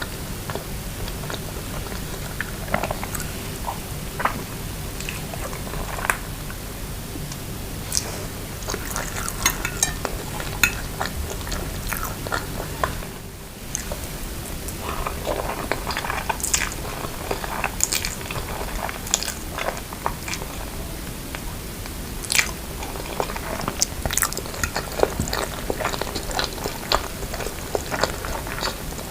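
Close-miked ASMR eating: biting and chewing instant noodles with vegetables and grilled chicken pieces, full of sharp wet clicks and occasional crunches, with a short pause about halfway through.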